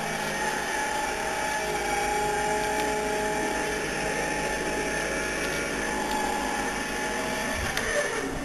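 A steady mechanical whirring with a few held tones, like a small motor running, with a couple of knocks near the end.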